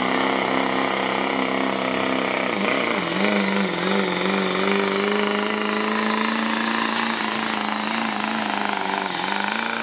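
Chevrolet Silverado's Duramax turbo-diesel running at high revs under full load while dragging a pulling sled. The steady engine note sags briefly about three seconds in and again near the end as the revs dip, then comes back up.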